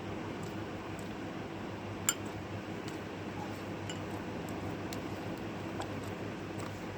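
Light clinks and clicks of a tool against a hard container, about a dozen scattered hits with a sharp one about two seconds in, over a steady low hum.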